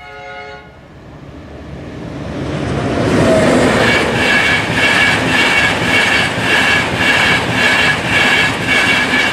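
A short horn blast, then a high-speed electric express train passing close by, its noise building over the first few seconds to a loud, steady rush. Through the loudest part a high pulsing tone repeats about twice a second.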